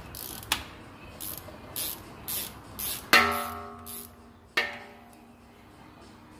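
Socket wrench loosening a car's gearbox drain plug: a sharp click, four short ratcheting bursts about half a second apart, then two loud ringing metal clinks of the tool against metal.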